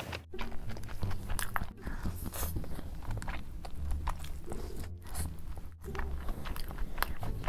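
Close-miked chewing and biting of food, with many small crunches and wet clicks.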